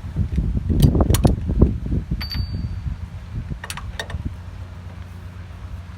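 Metal parts and tools being handled during engine repair work: a few sharp clicks and knocks, one with a brief metallic ring about two seconds in, over a steady low hum.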